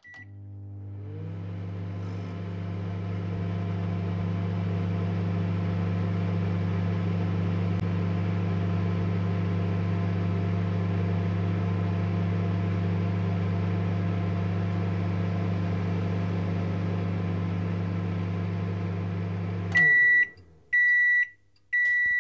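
Microwave oven running with a steady hum, then stopping near the end and beeping at about one-second intervals to signal it has finished.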